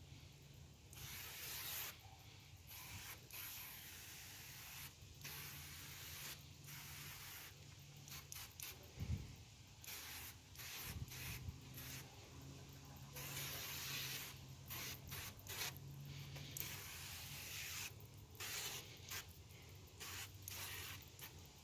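Hand-pump garden pressure sprayer hissing from its wand as it sprays liquid onto a wooden fence, in stretches of a few seconds broken by short pauses as the trigger is let go. A single thump about nine seconds in, over a faint low hum.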